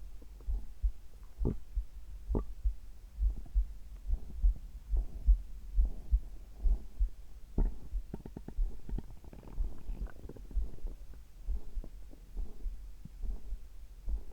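A person's heartbeat, a steady low thudding, with stomach gurgles over it, after a drink of carbonated water. Short crackly bubbling comes and goes, with a run of quick pops about halfway through.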